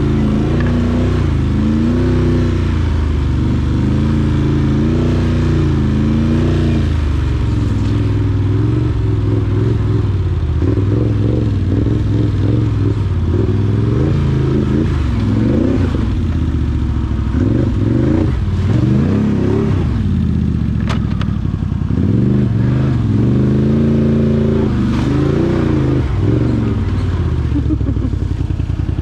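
Can-Am Outlander 850 XT ATV's Rotax V-twin engine running under way on a trail, its revs rising and falling again and again with the throttle. There are a few sharp knocks in the middle.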